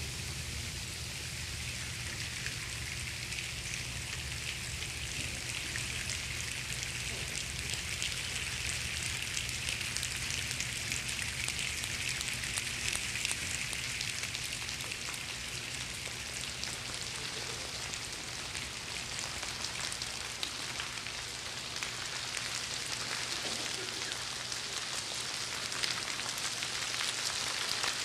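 A large audience making a rainstorm with their hands, rubbing, snapping and patting in groups: a dense hiss of many small clicks like falling rain, growing slightly louder.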